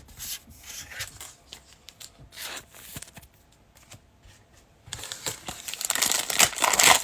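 Trading cards being handled with light rubbing and clicks, then from about five seconds in the wrapper of a football card pack being torn open, with loud crinkling.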